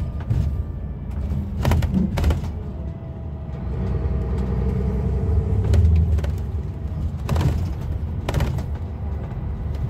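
Temsa Safari HD coach's diesel engine and road rumble heard from inside the passenger cabin, the engine note swelling for a couple of seconds midway. Four sharp knocks or rattles come through, two near the start and two near the end.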